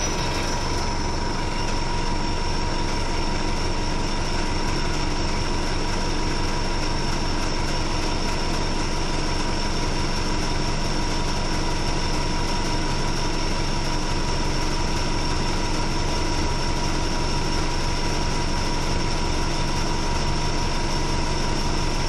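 A 1996 RTS transit bus's engine idling steadily, heard from inside the cabin, with a steady high-pitched whine over it.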